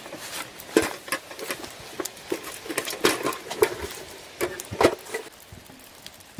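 Brisk, irregular strokes of a straw hand broom sweeping dirt and dry leaves into a metal bucket, with light scrapes and knocks against the bucket. The sweeping stops about five seconds in.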